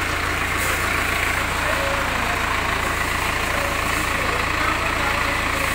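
Diesel engine of a JCB 3D backhoe loader running steadily at low revs.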